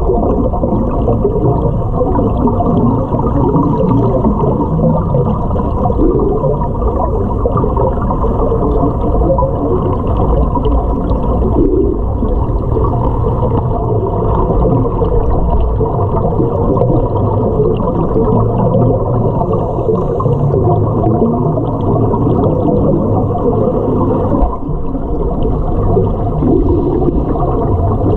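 Underwater sound in a swimming pool as picked up by a submerged camera: a steady, muffled rumble with a few held tones running through it.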